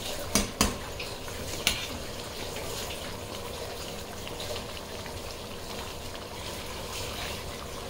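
Thick chilli paneer gravy simmering and bubbling in a steel wok over a gas flame, a steady sizzling hiss as it comes to a boil. A metal ladle clinks against the wok three times in the first two seconds.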